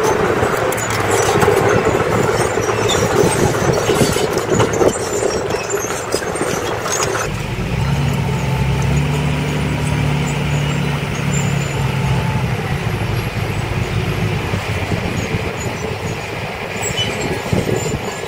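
Komatsu D20P crawler dozer's diesel engine running with clicking and clanking while it pushes soil. Suddenly, about seven seconds in, this gives way to a dump truck's diesel engine running steadily as its loaded tipper bed starts to rise.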